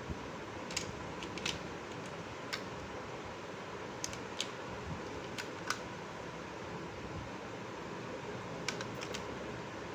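Small plastic toy pieces being handled, giving light, irregular clicks and taps over a steady background hiss.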